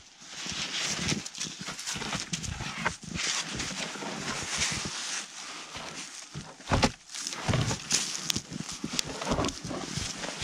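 Snow crunching and scraping as a birch pole is dragged through deep snow and pushed under a snowmobile to serve as a lever, with footsteps in the snow and a sharp knock about seven seconds in.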